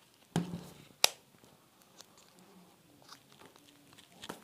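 A soft clear TPU case being pressed onto a smartphone by hand: two sharp clicks about half a second apart near the start, then a few faint taps and rubs as the case is worked over the edges.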